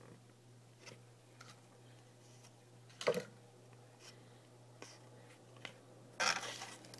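Trading cards and a card pack being handled: a few faint clicks, a sharper snap with a rustle about three seconds in, and a louder crinkling rustle of the pack wrapper starting about six seconds in, over a steady low hum.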